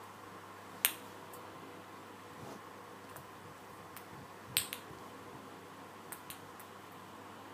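A few sharp, separate clicks or taps over a faint steady hum: one about a second in, a louder double click past the middle, and two soft ones near the end.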